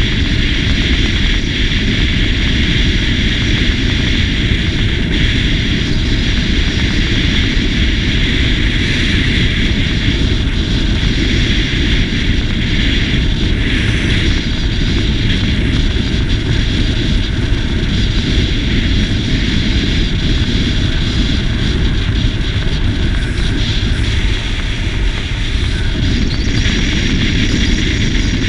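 Riding noise from a SYM GTS 250 scooter: a steady rush of wind over the microphone mixed with engine and road noise, easing slightly near the end.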